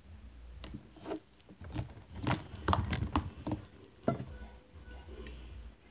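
Sticky homemade slime squelching and popping as fingers poke and press it on a tabletop: a run of irregular small wet clicks, densest in the middle, with a sharper pop a little after four seconds.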